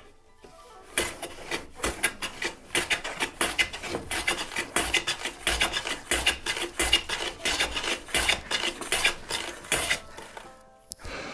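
Wood River hand plane shot along a shooting board, taking end-grain shavings off pine in quick short strokes, about three a second, from about a second in until near the end. The plane is cutting the end grain cleanly to square the board ends.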